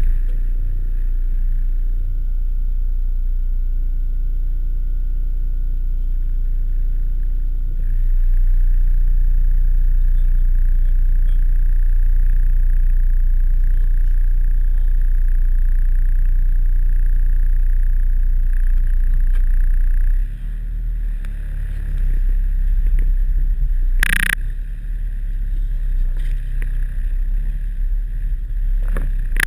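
Volkswagen T3 Syncro van's engine running under load at low speed, heard from inside the cabin; the engine note steps up louder about a quarter of the way in, eases off about two-thirds in and then rises and falls unevenly. A brief sharp clunk near the end.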